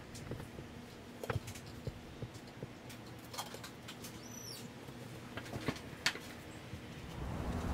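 Faint scattered clicks and crinkles of adhesive tape being handled and pressed onto the thin metal end of a can by hand. A short high bird chirp sounds about four seconds in.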